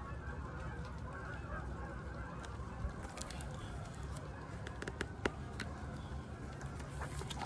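A flock of geese honking steadily in the distance, a continuous chatter of calls, with a couple of sharp clicks about three and five seconds in.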